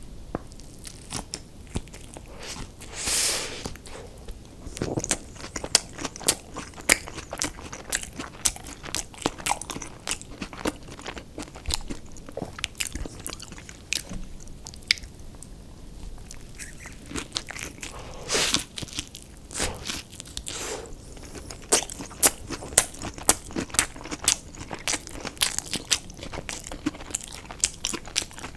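Close-miked eating of crunchy fried food: many crisp crunches and bites in an uneven stream, with two longer, louder noisy sounds about three seconds in and again after eighteen seconds.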